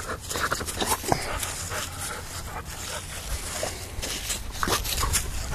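An American Bully-type dog panting and snuffling close to the microphone, with scattered rustling and scuffing.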